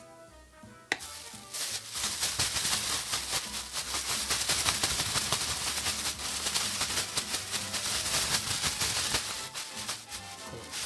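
Thin plastic cooking bag shaken and crinkled, tossing marinated vegetable pieces in potato starch to coat them: a sharp click about a second in, then a dense rattling rustle that eases off near the end. Background music plays quietly underneath.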